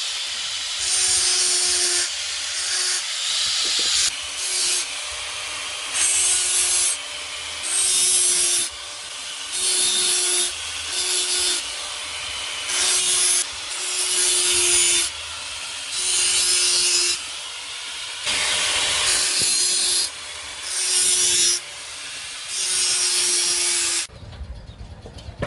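Hand saw cutting wood in back-and-forth strokes, about one a second, alternating louder and softer, with a steady tone sounding on the louder strokes.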